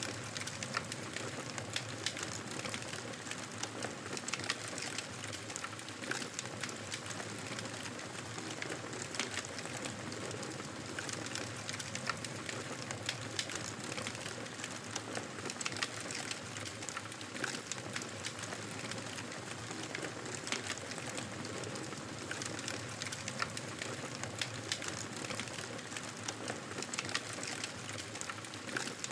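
Campfire burning, a steady hiss with frequent sharp crackles and pops scattered throughout.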